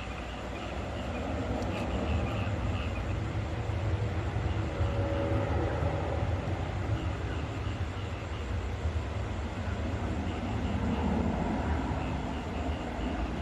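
Night ambience of steady rain hiss with frogs calling in short, repeated chirps, over a deep rumble that swells through the middle and eases near the end.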